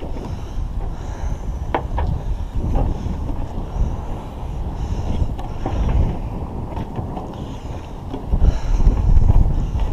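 Wind buffeting the microphone high up a sailboat mast, rumbling unevenly and gusting louder near the end, with a few light clicks and knocks as hands grab the metal mast steps.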